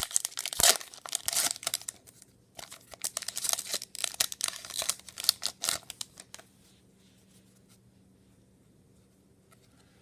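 Crinkly tearing and rustling of a trading-card pack wrapper being opened and the cards handled, a busy run of rustles that stops about six and a half seconds in.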